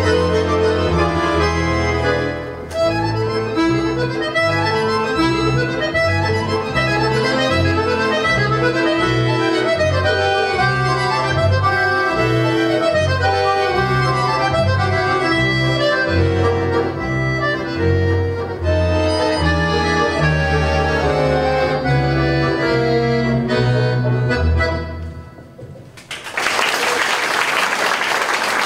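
Accordion quintet, four accordions and a bass accordion, playing a busy tune over a bass line of short repeated notes. The piece ends about twenty-five seconds in, and an audience breaks into applause a second later.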